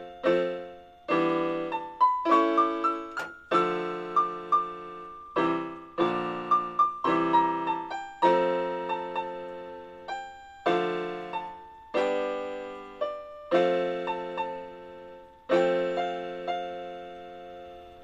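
Home electronic keyboard on a piano voice, played with both hands: a slow piece of chords struck every couple of seconds, with a melody line moving over them and each note dying away.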